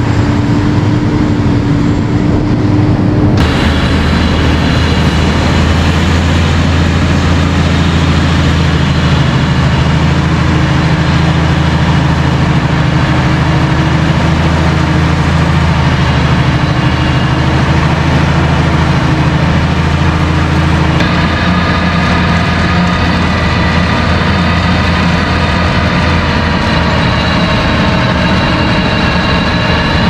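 Fendt 942 Vario tractor's diesel engine running steadily under load while pulling an 8-metre Kuhn HR 8040 rotary power harrow through the soil, with a higher whine layered over the engine's deep hum. The sound shifts abruptly twice, about three seconds in and about two-thirds of the way through.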